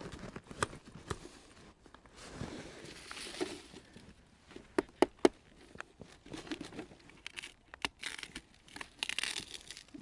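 Dry fallen leaves and twigs rustling and crackling as they are stepped through and then pushed aside by hand, with two loud sharp clicks about five seconds in.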